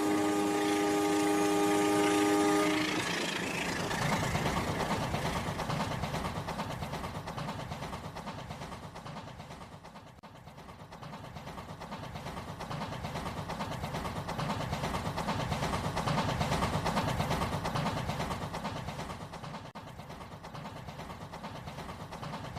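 A train horn sounds a steady chord of several notes, cutting off about three seconds in. The train then runs on with a fast, rhythmic rumble that swells and fades.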